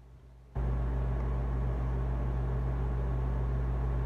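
Steady low hum with an even hiss over it, cutting in about half a second in after a quieter moment.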